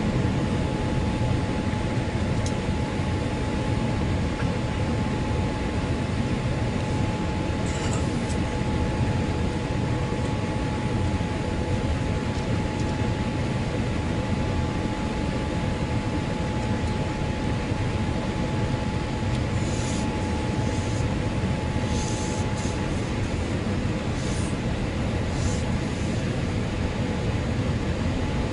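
Steady in-flight cabin noise of a Boeing 787 airliner: jet engines and airflow heard from a window seat over the wing, with a steady high hum running through it.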